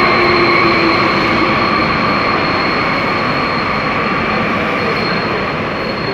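Santiago Metro train running: a steady rumble with several steady high-pitched whining tones on top, easing off slightly toward the end.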